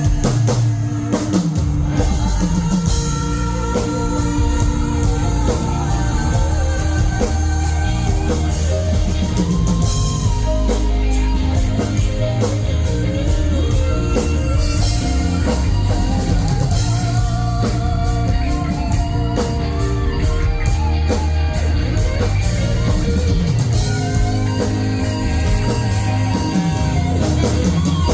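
Live rock band playing an instrumental passage: drum kit, bass and electric guitar, with a wavering lead melody over a steady beat.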